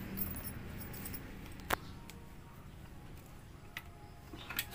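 A few sharp, separate clicks, one about two seconds in and a couple more near the end, over a faint low hum.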